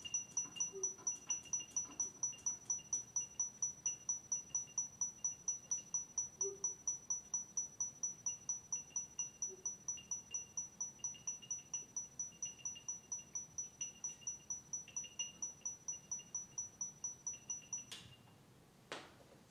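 Closing bars of a live piece for toy instruments and synths: a rapid, even, high-pitched pulse of about four beats a second over a faint tone that comes and goes. It slowly gets quieter and cuts off suddenly near the end, followed by a single click.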